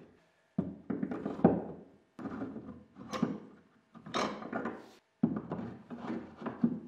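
Steel F-style bar clamps being hung one after another in the slots of a plywood clamp rack: four separate bursts of sliding, clattering and knocking of metal against wood.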